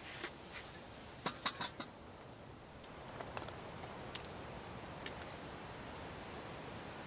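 Light clinks and knocks of a metal kettle and enamel mug being handled in the first two seconds, then a faint steady hiss of rain with an occasional tick of a drop.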